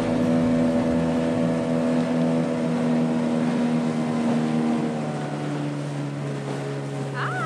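Outboard motor on an inflatable dinghy running steadily under way through choppy water. Its note changes about five seconds in.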